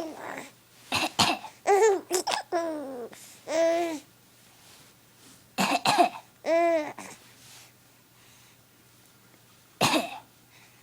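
Someone coughing in short bursts, with a baby laughing in reply between the coughs. The exchange pauses for a few seconds before a last cough near the end.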